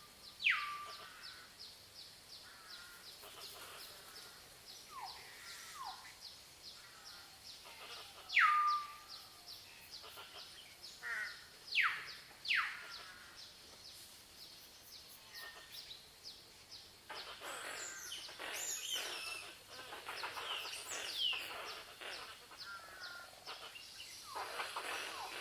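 Wild birds calling in a forest: loud whistles that sweep sharply down in pitch, each ending on a short held note, repeat every few seconds. A steady ticking pulse runs beneath them. From about two-thirds of the way in, a busier chatter of mixed bird calls takes over.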